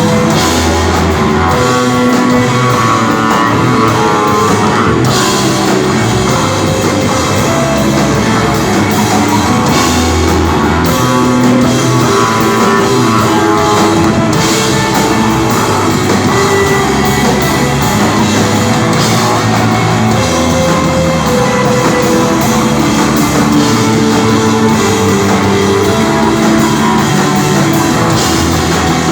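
Instrumental desert-rock band playing live: electric guitar lines over bass and drum kit, loud and continuous.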